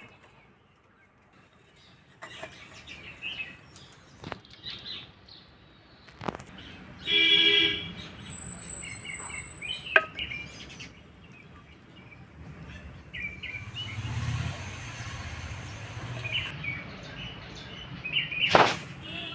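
Outdoor ambience with birds chirping and calling, including one loud call about seven seconds in, and a few scattered knocks, the sharpest near the end.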